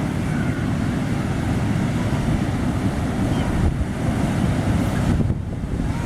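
Strong wind buffeting the microphone over the rush of large waves: a steady, heavy low rumble.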